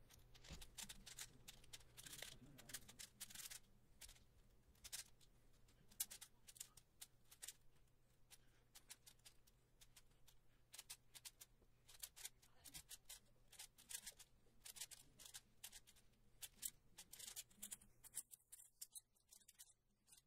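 Magnetic 6x6 speedcube (MGC 6x6) turned rapidly by hand: a fast, irregular run of faint plastic clicks as the layers snap into place, the cube freshly lubricated.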